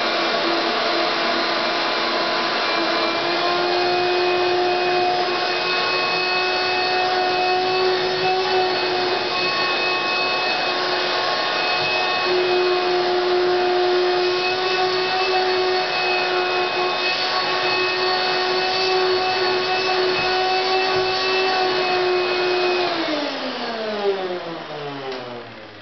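1991 Hoover Turbomaster U5094 upright vacuum cleaner running with a steady whine. About 23 seconds in it is switched off, and the pitch falls away as the motor winds down.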